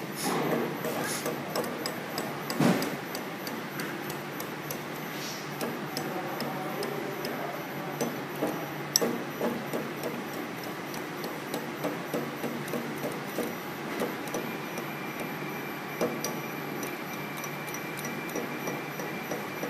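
Automatic steel-rule blade bending machine feeding and bending a thin steel blade, with a steady mechanical running noise and many irregular clicks and knocks from the bending head. A thin steady whine joins in about three-quarters of the way through.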